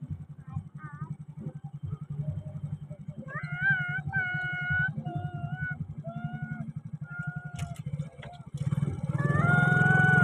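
A child's high voice singing a few long, level notes over the steady low running of a small engine; the voice returns louder near the end with notes that slide up and down.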